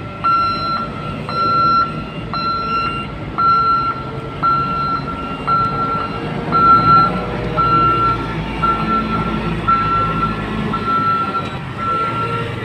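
Reversing alarm on a container-handling machine beeping about once a second, over its engine running.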